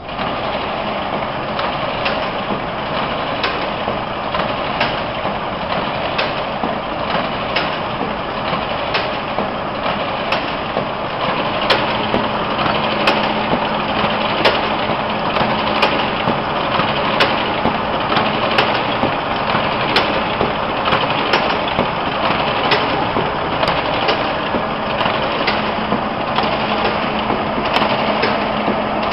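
RISO TC5100 paper collator starting up and running, a steady mechanical whir with regular clicks as its rollers feed sheets from the stacked bins. A low steady hum joins about twelve seconds in.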